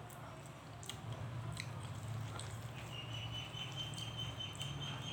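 A person chewing food close to the microphone, with a few sharp mouth clicks, over a steady low hum; a thin, steady high tone comes in about three seconds in.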